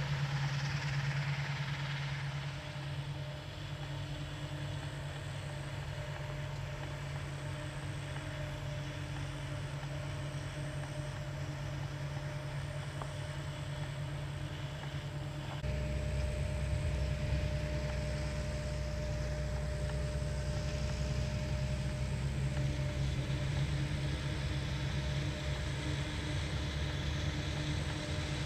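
New Holland FR9090 forage harvester, rated 825 hp, running steadily under load while chopping maize: a constant deep engine drone. About halfway through the sound shifts to a heavier, deeper drone.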